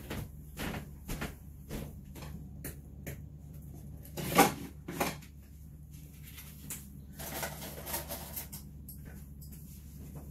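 Someone moving about a kitchen: scattered knocks and clicks of cupboard doors and things being handled, the loudest knock about four and a half seconds in, over a steady low hum.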